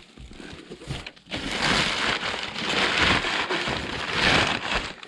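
Cardboard box being opened by hand, packing material rustling and crinkling, setting in about a second in after a few light knocks.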